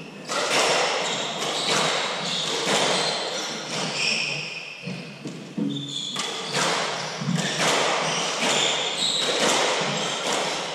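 Hardball doubles squash rally: a string of sharp hits of the hard ball off racquets and the court walls, roughly one or two a second, echoing in the enclosed court, with short high squeaks of shoes on the floor between the hits.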